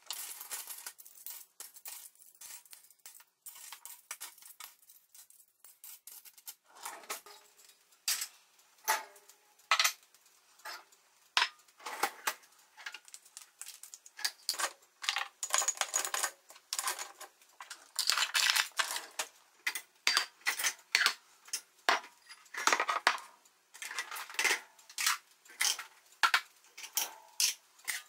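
Stainless steel cutlery clinking and clattering as handfuls are dropped into a metal mesh drawer organizer, followed by dishes, plastic containers and utensils knocking against each other and the dishwasher rack as they are unloaded. The clatters are irregular and grow busier and louder in the second half.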